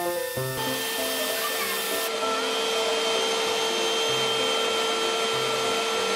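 Canister vacuum cleaner running steadily with a constant whine as its hose sucks up spilled baby powder from a tile floor. Plucky background music stops about half a second in.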